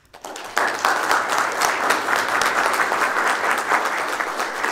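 Audience applauding: many hands clapping at once, coming in right away and at full strength about half a second in.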